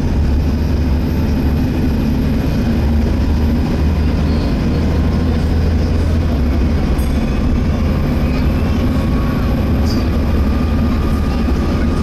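Volvo B7TL bus's engine running under way, heard from inside the bus: a steady low drone with a faint high whine from the engine cooling fan, which is trying to 'hoover', on the edge of its vacuum-cleaner-like whine.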